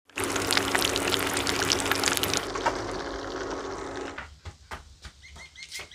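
Chicken deep-frying in a pan of hot oil: dense sizzling and crackling that thins out and stops about four seconds in. Near the end come scattered clicks and a short high chirp, repeated several times.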